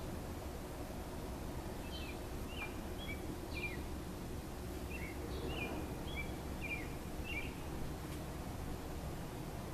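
A bird chirping in a quick series of short, sharp notes from about two seconds in until past the middle, over a steady low outdoor background rumble.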